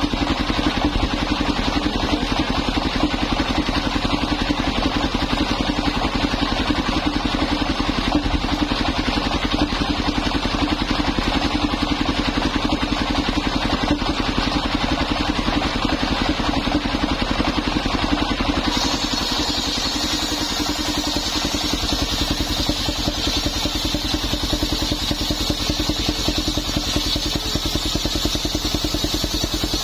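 Engine of a belt-driven circular sawmill running steadily with its blade spinning; about two-thirds of the way in the blade starts cutting old coconut wood, adding a high, rasping saw noise over the engine.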